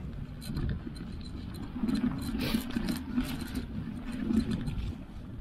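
Mountain bike rolling along a dirt forest trail covered in fallen leaves: a steady low rumble of tyres and wind, with scattered sharp clicks and rattles from the bike over the rough ground.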